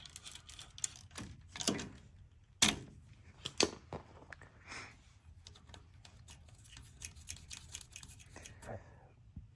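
Irregular metallic clicks and clinks of small nuts, washers and a hand wrench as the airbag air-line fitting is assembled and tightened, with a few louder clinks in the first half.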